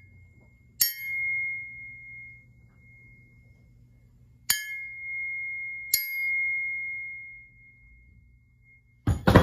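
A vintage True Temper Kelly Perfect double-bit axe head, a bare steel head, struck three times. Each strike rings like a bell with a clear high tone that fades over a second or two, which some take as a sign of good steel. A louder clatter comes near the end.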